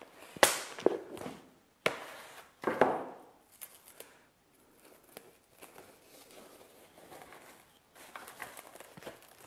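Plastic cling film being pulled off its roll, torn and pressed over a bowl: a few sharp crinkling snaps in the first three seconds, then softer rustling.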